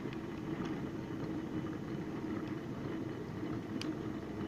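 A steady low hum with a few faint, scattered crackles from the wood fire burning in a popcorn-tin stove under a steaming coffee pot.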